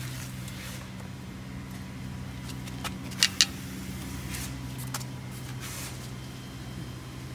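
Steady low machine hum with two sharp clicks about three seconds in and a few fainter ticks after.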